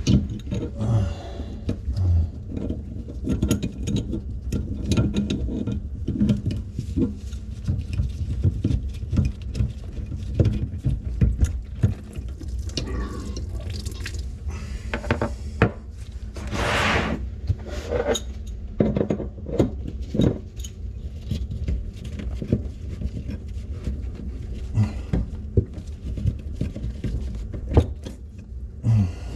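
Irregular clicks, knocks and clatter of hand tools and fittings under a kitchen sink while the old faucet is being taken off, with a short hiss about halfway through.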